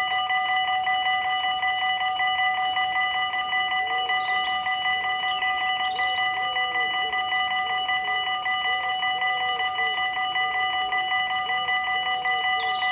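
Electric level-crossing warning bells ringing in a fast, even, continuous clangour of several fixed tones, the signal that the crossing is closed and a train is coming.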